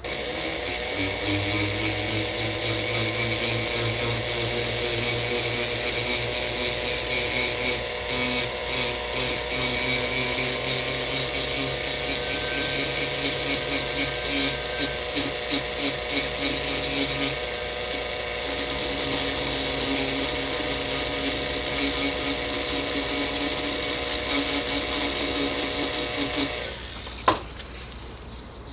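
Dental laboratory straight handpiece spinning a mounted abrasive stone against a gold three-unit bridge, grinding down high contact spots on the chewing surface. A steady motor whine wavers in loudness as the stone bears on the gold. It stops about 27 seconds in, followed by a single sharp click.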